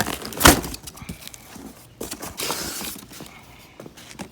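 Cardboard shipping box being torn open and handled by hand: a loud knock about half a second in, a tearing, rustling stretch around two to three seconds in, and scattered small knocks.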